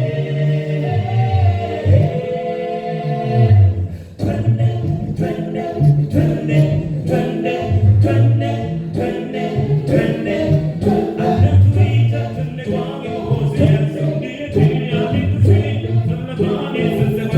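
Choir singing a gospel song a cappella, with a strong bass line under the voices. There is a brief break about four seconds in, after which the singing turns to a quicker, rhythmic pattern.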